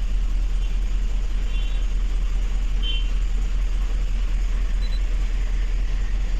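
2007 GMC Yukon XL V8 engine idling rough, a steady low rumble with an uneven beat. The engine is misfiring on cylinders 1, 3, 5 and 7, the codes the scanner shows, which the mechanic takes for an electrical fault.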